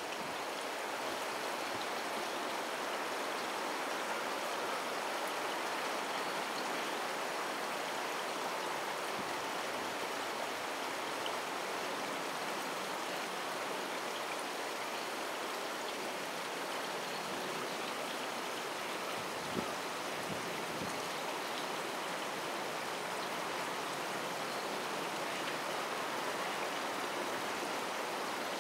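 Steady, even rushing background noise with no bird calls. A faint high whine runs under it, and a single soft thump comes about two-thirds of the way through.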